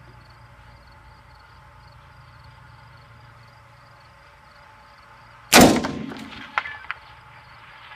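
A single AR-15 rifle shot, 5.56 mm XM193 55-grain ammunition, about five and a half seconds in, with an echo trailing off briefly; two small clicks follow about a second later.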